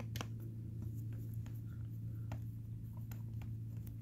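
Phillips screwdriver turning a small screw out of the metal extruder block on a NEMA 17 stepper motor: faint, irregular clicks and scrapes of the tip in the screw head, over a steady low hum.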